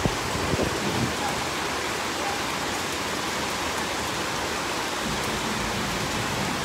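Heavy, torrential rain falling steadily: a dense, even hiss of downpour.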